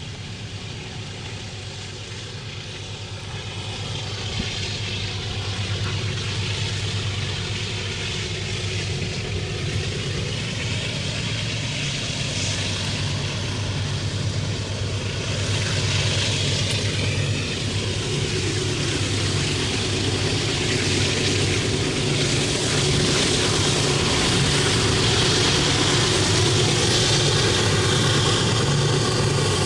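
A pair of GE AC44i diesel-electric locomotives pulling a loaded 136-car iron ore train up a grade, their engines droning under load. The sound grows steadily louder as they approach.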